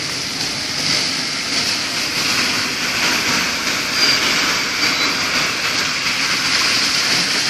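A car wading slowly through floodwater: a steady rushing swish of water churned up by the wheels, over the low running of the engine.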